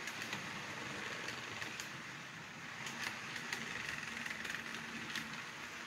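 N-scale model passenger train rolling past on its track: a steady rolling hum with scattered light clicks as the wheels cross the rail joints.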